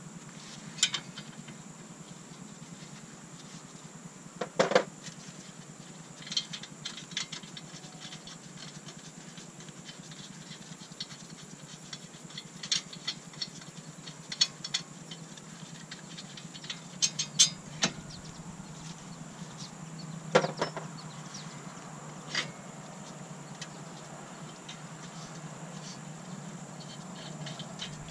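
Scattered sharp metal clicks and knocks, one at a time with pauses between, from hands and tools working on the front brake caliper and hub of a car.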